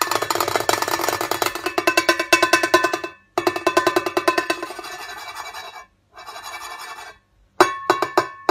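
White cockatoo rapidly pecking and beak-tapping a cymbal, a fast rattle of metallic strikes over the cymbal's ringing. The rattle comes in runs with short breaks, ending in a few separate, louder strikes.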